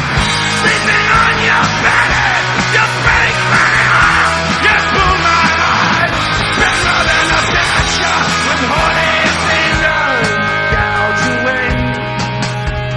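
Rock music playing on the soundtrack.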